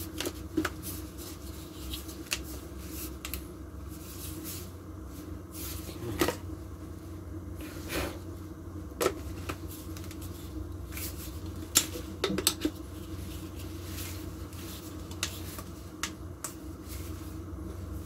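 Plastic parts of a mini cordless vacuum cleaner being handled and fitted together: scattered clicks and knocks, a dozen or so, over a steady low hum.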